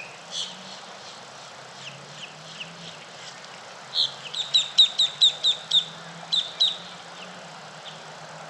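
Songbirds calling at dawn: scattered short high chirps, then about four seconds in a fast run of about ten sharp repeated notes, the loudest sound. A faint steady low hum lies underneath.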